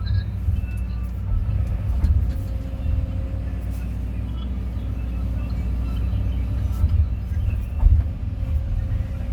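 Kobelco 320 excavator's diesel engine running steadily, a low rumble that swells slightly now and then.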